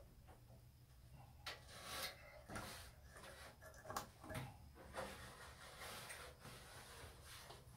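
Faint, scattered knocks, scrapes and rubbing as an old sheet-metal fluorescent light fixture is handled and worked loose from wooden ceiling rafters, with the sharpest knock about four seconds in.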